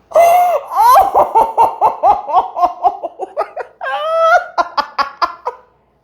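A person laughing hard: a long run of quick, high-pitched 'ha-ha' pulses, with a higher rising squeal about four seconds in, then stopping. It is the patient's reaction to a chiropractic adjustment that yanked the head.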